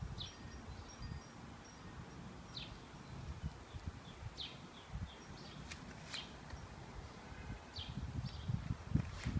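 Outdoor garden ambience: small birds chirping in the background, short high falling chirps every second or two, over an uneven low rumble on the microphone.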